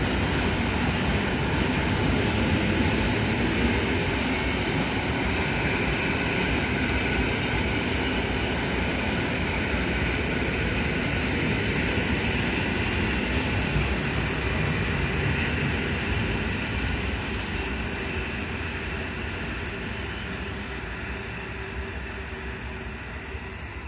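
EN57-series electric multiple unit train running past a platform, a steady rolling rumble of its wheels on the rails that fades over the last several seconds as the rear of the train moves away.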